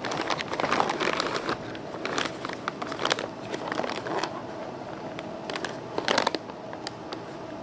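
Cardboard box and packing material being handled: irregular rustling and crinkling with scattered small clicks and knocks, busiest over the first four seconds and again briefly about six seconds in, then settling.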